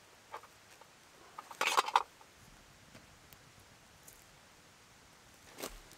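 Small fire of dry twigs just catching, giving sharp crackles and pops, with a short cluster of snaps about two seconds in and then only a few faint ticks.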